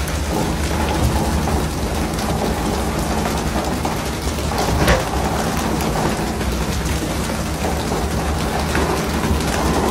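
Steady hiss and splash of churning sea water alongside a pole-and-line tuna boat as skipjack are hauled aboard, over the low steady hum of the boat's engine. A single thump about five seconds in.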